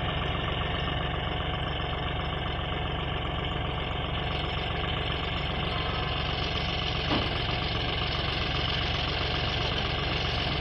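John Deere 5210 tractor's three-cylinder diesel engine idling steadily with the tractor standing still, with a brief click about seven seconds in.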